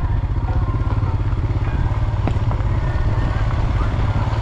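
Motorcycle engine running steadily under way, a low, rapid throb.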